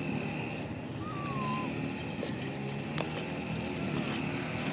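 Steady outdoor background hum, like a motor running, under a high steady drone, with one short whistled call about a second in.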